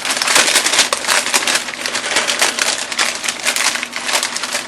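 Parchment paper being handled and crinkled, a dense steady crackling.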